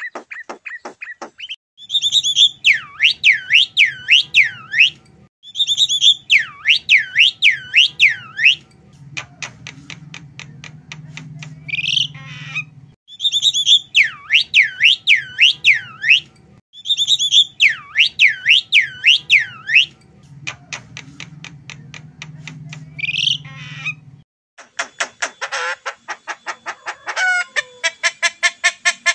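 Javan myna singing: repeated phrases of about five quick swooping whistles, each falling in pitch, alternating with fast dry rattling clicks and, near the end, a rapid buzzy chatter.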